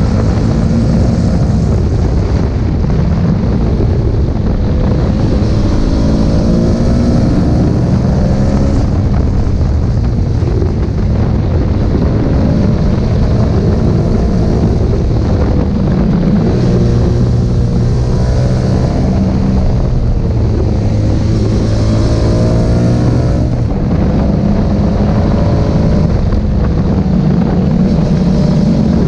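Aprilia Tuareg 660's parallel-twin engine running under way, its revs repeatedly rising and falling, with wind rushing over the microphone.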